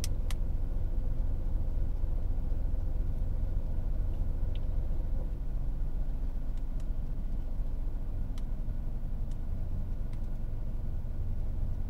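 A steady low rumble with a faint hum above it and a few faint ticks scattered through it.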